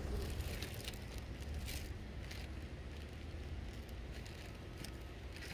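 Wind buffeting the microphone as a steady low rumble, with scattered light clicks and crackles.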